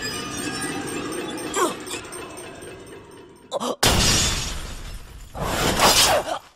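Anime sword-fight sound effects. Background music fades out, then a sudden loud, shattering crash of a sword striking a shield comes just before four seconds in, and a second loud clash follows about a second and a half later.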